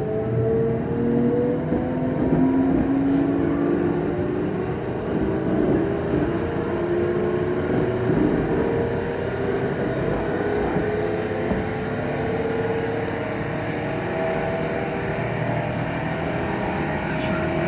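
Electric train's traction motors whining under power, several tones rising slowly and then holding steady about two-thirds through, over running rumble. The motor noise is clearly abnormal.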